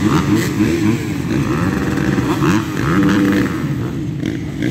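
Several motocross bikes running at the start gate, their riders blipping the throttles so that the engine notes overlap and rise and fall in pitch.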